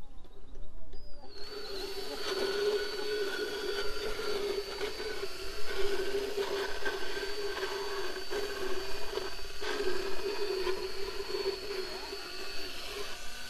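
Motorized equine dental float grinding down a horse's uneven teeth. It starts about a second in: a steady high motor whine over a rasping, grinding noise.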